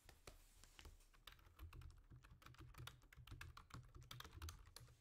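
Faint, rapid clicking of typing on a computer keyboard, irregular key strikes with dull knocks of the keys bottoming out.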